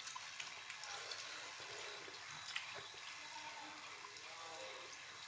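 Faint chewing and mouth clicks from someone eating a chicken wrap, over a steady low room hiss; one slightly louder click about two and a half seconds in.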